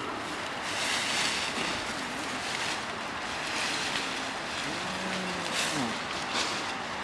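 Steady rustling hiss of leafy branches and dry straw, mixed with wind on the microphone, swelling briefly a few times.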